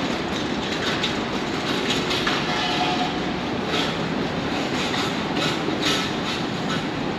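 Train running on rails: a steady rumble with irregular clicks of wheels over rail joints and a brief squeal about three seconds in.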